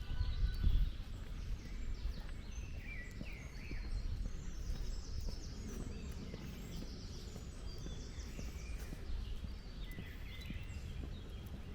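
Several birds chirping and calling, with short high chirps and trills throughout, over a low rumble that is loudest in the first second.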